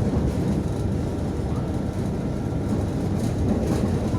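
Inside a moving MAZ 105.065 city bus: steady low engine and road rumble, with a few light rattles near the end.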